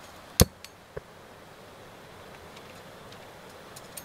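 A sharp click about half a second in, a faint one just after, and another click about a second in, over a low steady background hiss.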